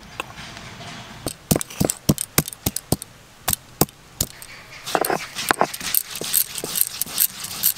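Chopped ginger being crushed on a shil-nora, a flat stone grinding slab worked with a hand-held stone roller. The stone knocks on the slab in many sharp, irregular strikes, with rubbing and scraping as the paste is ground.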